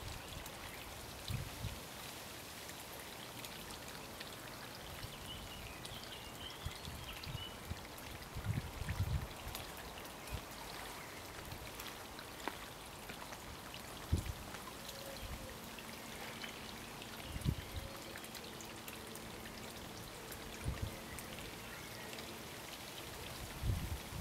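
Wind buffeting the microphone in short low rumbles, several times, over a steady outdoor hiss.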